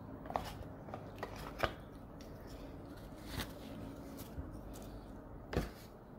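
A few light clicks and taps from chopsticks and tableware being handled at a table, with a louder soft thump near the end.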